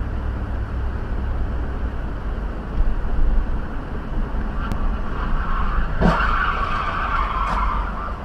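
Steady road and engine rumble of a car heard from inside the cabin, then tyres skidding in a screech that builds from about four and a half seconds in and is loudest around six seconds in, with a brief thud there.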